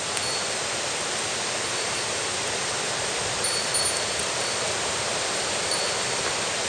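Rushing mountain stream: a steady, even rush of water, with a brief high ringing tone, like a small bell, a few times.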